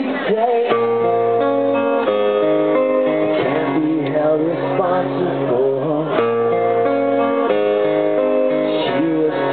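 Live acoustic guitar strummed with chords changing every second or so, and a man singing over it.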